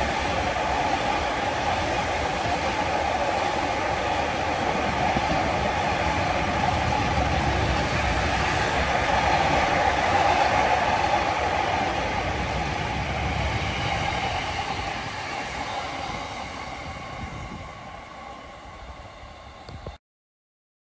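Loaded aggregate hopper wagons of a freight train rolling past on steel rails, a steady wheel rumble and clatter that fades away over the last several seconds as the train recedes, then cuts off suddenly near the end.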